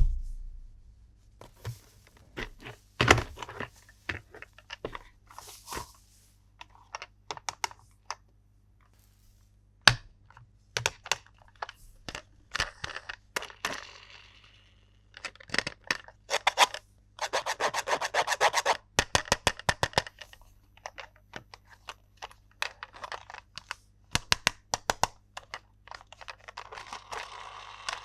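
Hands handling plastic toy parts and packaging: scattered sharp plastic clicks and taps, a fast rattling run of clicks a little past the middle, and crinkly rustling of packaging near the end.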